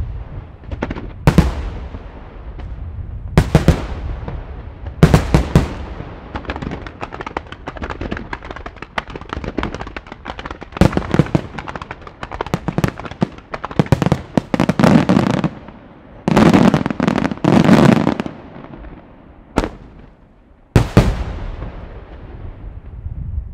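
Professional fireworks display: aerial shells bursting with sharp reports every second or two, a dense patter of smaller reports between them, and a heavy volley of bursts about two thirds of the way through.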